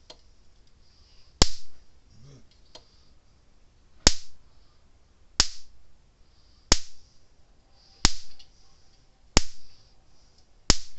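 Gallagher M1000 electric fence energizer's output pulses arcing from the hot terminal to ground: sharp spark snaps, seven of them about 1.3 seconds apart. The stout spark shows the repaired unit working.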